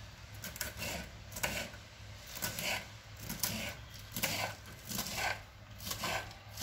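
Kitchen knife slicing through fresh purslane stems onto a wooden cutting board, a crisp cut about twice a second.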